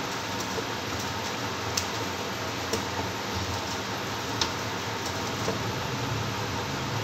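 Wheat-flour dough being kneaded by hand in a steel bowl: a few light clicks and knocks against the bowl over a steady background hiss.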